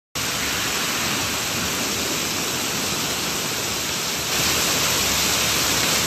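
Strong wind and heavy surf breaking on a seawall, a steady rushing noise that gets a little louder just past four seconds.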